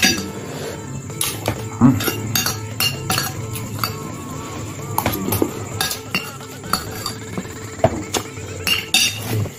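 A metal spoon clinking and scraping against a glass bowl in many short, irregular clicks as noodles are scooped up, with mouth sounds of eating in between.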